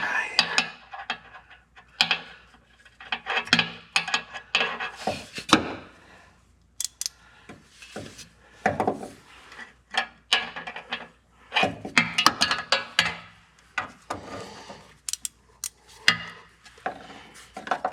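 Metal hand tools clinking, knocking and scraping in irregular bursts as a ratchet and socket are worked into a tight spot to reach an oxygen sensor.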